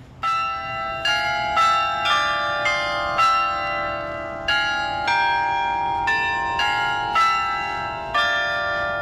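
Carillon bells played as a slow melody: about a dozen notes struck one after another, each ringing on with a bright, bell-like tone while the next sounds.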